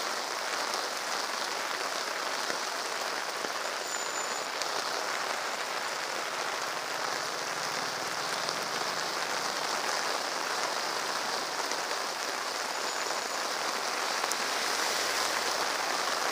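Heavy rain pouring steadily onto an asphalt street, an even, unbroken hiss.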